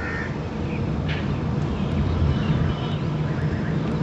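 Motor vehicle engine running, a steady low rumble.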